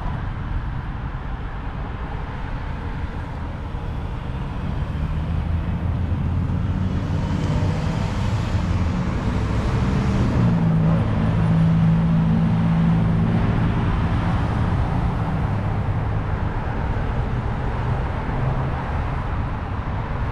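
Road traffic at a busy intersection: car engines running and passing close by, with a steady low engine drone that swells about halfway through.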